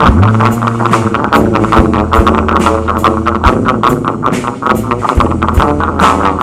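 Band music with electric guitar, bass and drum kit, the cymbals ticking out a steady beat over sustained bass notes.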